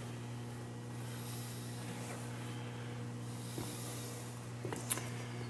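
Steady electrical mains hum of shop equipment with a faint hiss, and a few small clicks near the end.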